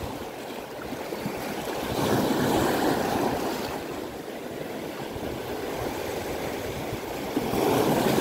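Small sea waves washing onto a rocky, pebbly shore, swelling twice: once about two seconds in and again near the end.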